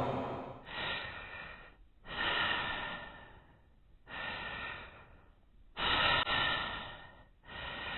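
A series of about five breathy rushes of noise, each starting suddenly and fading away within a second or so, coming roughly every one and a half to two seconds.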